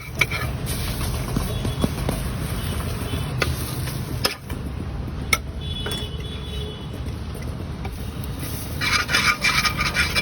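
A metal spatula scraping and tapping on a flat griddle while an omelette cooks, with a few sharp knocks and a burst of clattering near the end. Under it runs a steady low rumble of background traffic.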